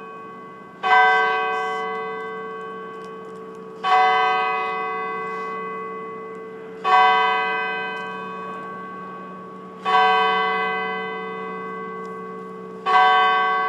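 Clock tower's hour bell striking twelve: five evenly spaced strokes of the same note about three seconds apart, each ringing on and fading slowly before the next.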